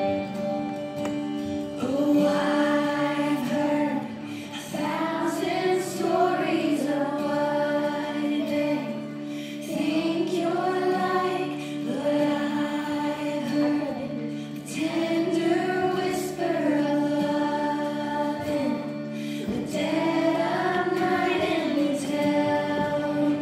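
Children's choir singing a worship song over a steady instrumental accompaniment, in repeated phrases a few seconds long that rise and fall in pitch.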